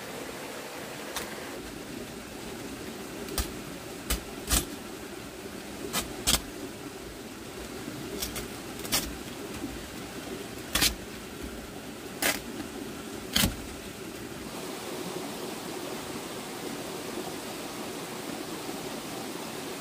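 Sharp, irregular knocks, about ten of them over the first fourteen seconds, over the steady rush of a flowing stream.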